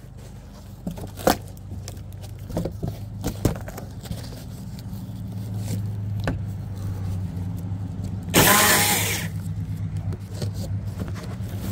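An engine running steadily at a low, even hum that grows slightly louder, with a few sharp knocks. About eight seconds in comes a loud hiss lasting about a second.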